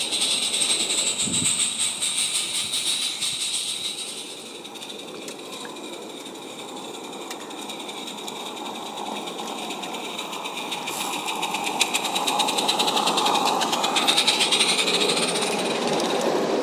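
G-scale model steam train with passenger carriages running on garden track: a fast, even clatter. It is loud at first, drops away for a few seconds, then grows louder again as the train passes close near the end.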